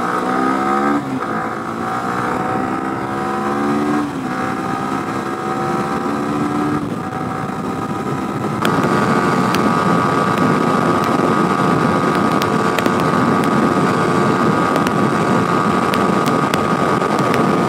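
Motorcycle engine accelerating through the gears, its pitch rising in pulls broken by shifts about one, four and seven seconds in. About halfway through it settles into a steady cruise, louder, with a steady high tone over a rushing noise.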